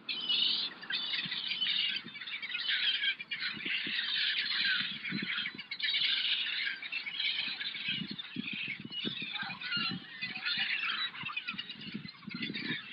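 A flock of seabirds, mostly gulls, squawking and crying over the water: many high calls overlapping without a break.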